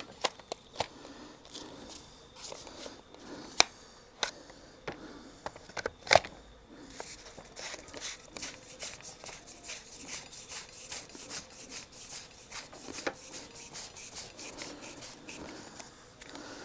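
Hard plastic clicks and knocks as the Ryobi pole hedge trimmer's pole sections are slid together, with a few sharper knocks in the first six seconds. From about seven seconds in comes a long run of small quick ticks and rubbing as the connecting collar is screwed on tight.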